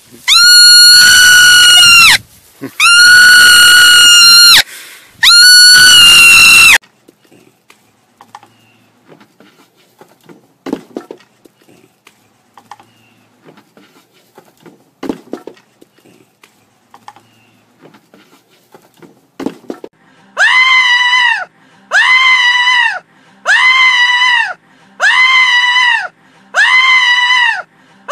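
A marmot screaming three times, long shrill high-pitched screams. Several seconds of faint scattered taps follow, then, about twenty seconds in, a run of six shrill pitched animal cries, evenly spaced about a second and a half apart.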